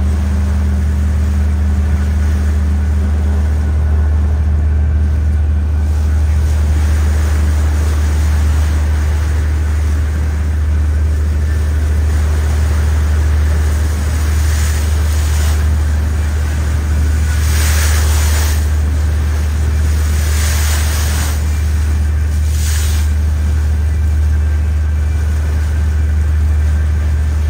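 Boat engine running steadily, a constant low drone, with several short rushes of hiss in the second half.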